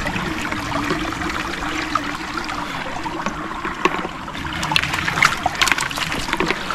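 Shallow river water trickling and sloshing around people wading in it, with a run of small sharp splashes in the second half.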